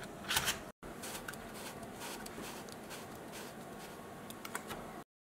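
Quiet hand handling of a cardboard machine and paper banknotes: soft rustling with a few light clicks, the loudest about half a second in and a few more near the end.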